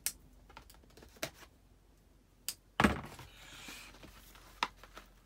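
Scattered light clicks and taps of a small cardboard box of firework ground spinners being handled and turned over, with one louder knock about three seconds in.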